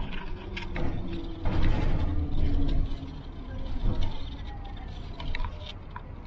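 Inside a moving city bus: the engine and drivetrain run under a low rumble, with scattered clicks and rattles from the cabin. The engine tone falls in pitch and the noise eases off as the bus slows.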